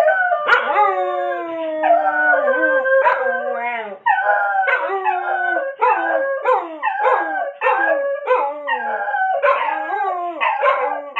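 A beagle and a white mixed-breed dog howling together, their voices overlapping. One long drawn-out howl fills the first few seconds, then the howling breaks into a quick, wavering run of short falling howls, about two a second.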